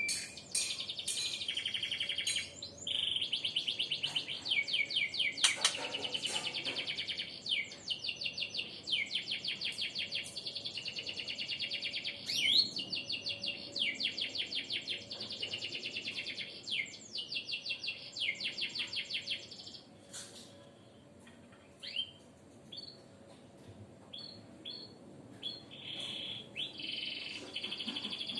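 Birds singing in high-pitched, rapid trills, one phrase of about a second after another. Two-thirds of the way through they thin to a few short chirps, then the trilling starts again near the end.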